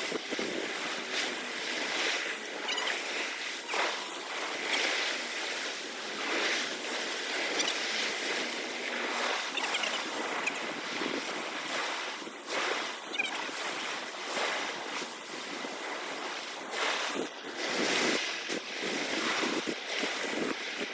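Sea waves washing, with wind blowing across the microphone in uneven gusts.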